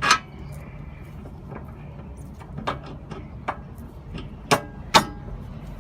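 Sharp metal knocks and clunks as a new sway bar link's stud is worked into its mount on the front suspension. The first knock is the loudest, with two more close together about a second apart near the end.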